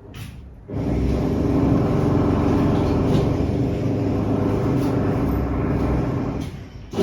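Renovation power tool running steadily with a pitched hum and a fast pulsing rattle. It starts abruptly under a second in and stops shortly before the end, followed by a short knock.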